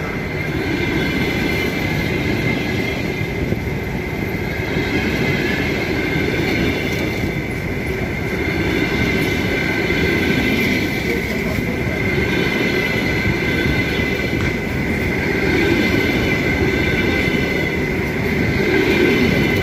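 Passenger train carriages rolling slowly along the platform, a steady rumble of wheels on rail with a high, steady squeal from the wheels over it.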